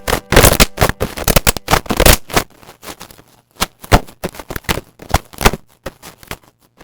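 Slime being pressed and poked, giving a fast, irregular run of sharp pops and crackles that thins out to scattered clicks after about three seconds.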